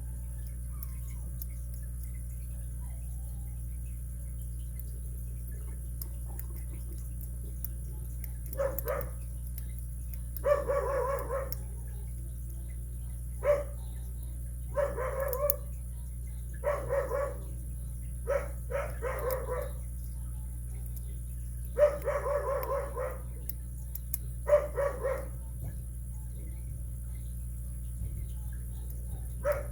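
A dog barking in a series of about eight drawn-out barks, starting about eight seconds in, over a steady low hum.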